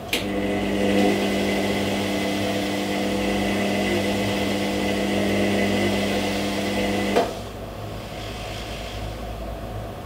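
Front-loading washing machine's drum motor starting with a click, running with a steady hum while it turns the drum, then stopping abruptly with a click after about seven seconds, as the drum pauses between turns of the wash tumble. A lower steady hum carries on underneath.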